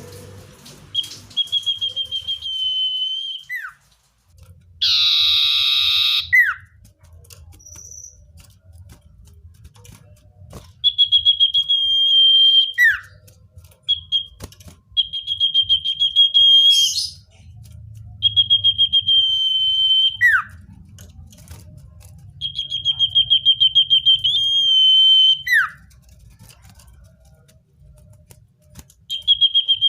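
Common iora (cipoh) singing: about six long whistled phrases on one high note, each opening with a fast trill and ending in a short falling note. A harsh, noisy burst sounds once about five seconds in, over a faint low rumble.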